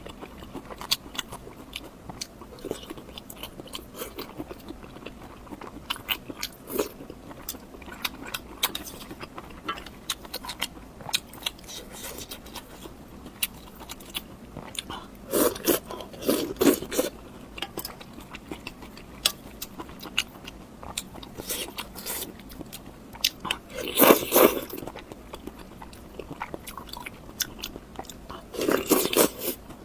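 Close-up mouth sounds of someone biting and chewing crunchy food: a steady run of small crunches, with louder bites about halfway, again about four-fifths of the way, and at the very end.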